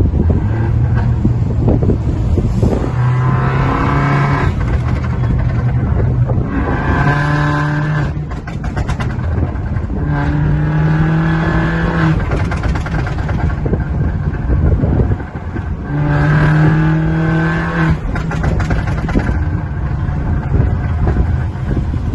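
Stage 2 tuned Mini Clubman's turbocharged 1.6-litre engine accelerating in about four short pulls, its note rising each time. Rapid pops and crackles from the exhaust come as the throttle closes after some of the pulls, the sound of a tune's pops-and-crackles overrun map.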